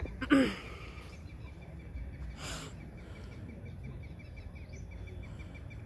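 Outdoor ambience: a low rumble of wind on the microphone and faint bird chirps. A brief falling-pitched cry about a third of a second in is the loudest sound, and a short hiss follows at about two and a half seconds.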